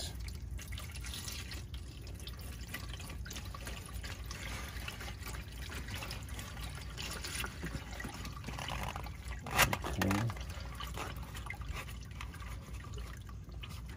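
Used engine oil draining from the sump of a Sprinter's six-cylinder diesel in a thin steady stream into a plastic drain pan, trickling and pattering on the oil already in the pan. A single sharp knock comes about two-thirds of the way through.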